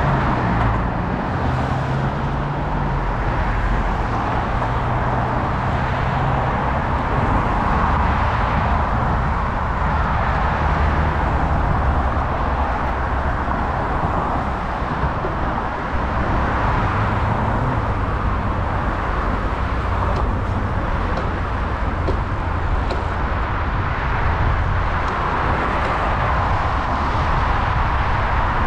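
Steady ride noise from a city bicycle moving along a road: wind rumbling over the action camera's microphone, mixed with cars passing on the road alongside.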